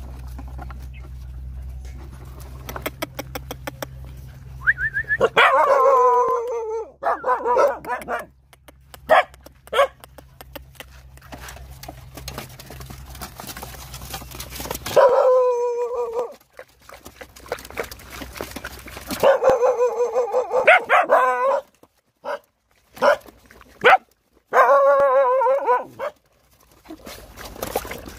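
Hungry puppies whining and yelping for food, in four or five loud bursts of wavering high cries a second or two long, with short clicks and scuffling between them.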